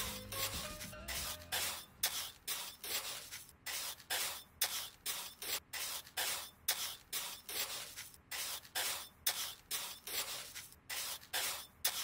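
Steady back-and-forth rubbing strokes, about two a second, such as hand sanding or scraping makes. Background music fades out about a second in.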